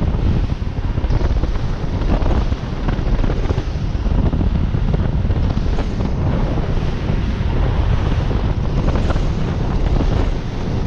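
Heavy wind buffeting on the microphone over the rush of water and spray from a center-console fishing boat running fast across the water.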